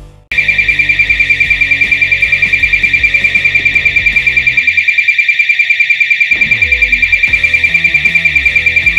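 Strobe siren sounding a temperature alarm: a loud, high-pitched tone pulsing about eight times a second, starting suddenly. It is set off by the thermal camera because an electric kettle has gone over the set temperature limit.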